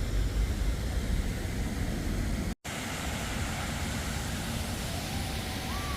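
Steady low engine rumble of a water taxi, cut off abruptly about two and a half seconds in. After the cut comes a steady rushing noise, with a short faint whistle-like call near the end.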